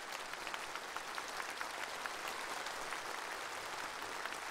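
Large audience applauding steadily, a dense even clatter of many hands.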